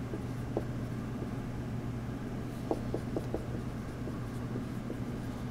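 Dry-erase marker writing on a whiteboard: faint, scattered short squeaks and taps of the marker tip as letters are written.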